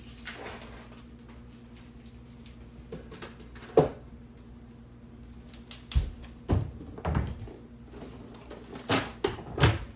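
Kitchen handling noises: scattered knocks and thumps, like cupboard doors and items being set down, with a sharp knock about four seconds in and a cluster of them in the second half.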